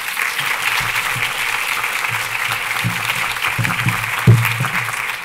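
Audience applauding: many hands clapping in a steady, dense patter, with a single low thump about four seconds in.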